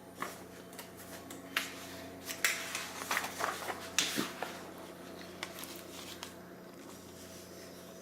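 Pages of a picture book being turned: a run of papery rustles and flicks, most of them between about one and a half and four and a half seconds in.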